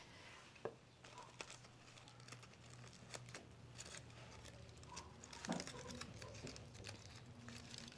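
Aluminium foil crinkling faintly as a foil-wrapped fish packet is opened by hand, with scattered small rustles and clicks.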